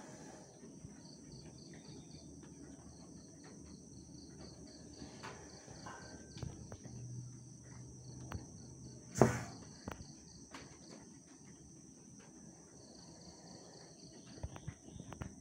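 Crickets and other insects trilling steadily, one chirping in quick regular pulses. A single sharp knock comes about nine seconds in, with a few lighter taps near the end.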